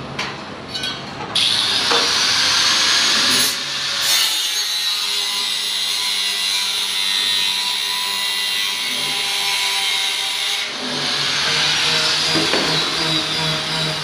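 Angle grinder spinning up about a second in and cutting through a sheet-steel cable tray with a steady, high-pitched grinding whine, then switched off and winding down with a falling whine a few seconds before the end.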